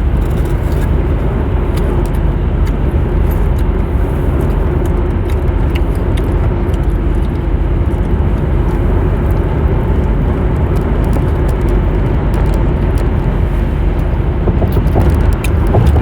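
Car driving at speed, heard from inside the cabin: a steady rumble of road and engine noise.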